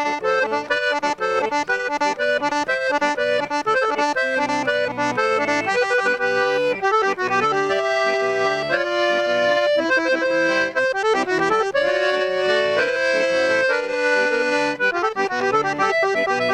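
Accordion (sanfona) playing a lively tune solo, a melody of quick changing notes over held chords.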